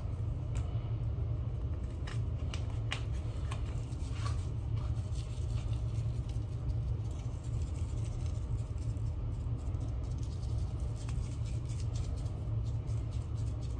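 Steady low hum in the room, with a few faint light ticks and rustles from a seasoning packet being shaken over raw steaks.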